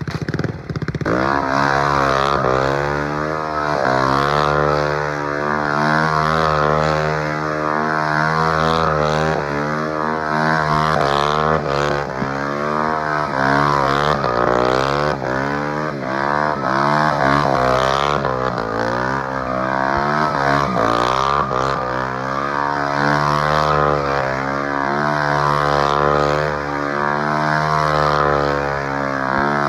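Honda Grom's swapped-in CBR250R single-cylinder engine revving up about a second in and then held at high revs through a circle burnout, the revs wavering up and down as the throttle is worked.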